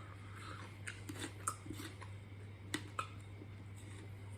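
A person chewing food, with a few faint, short crunches and mouth clicks scattered through, over a steady low hum.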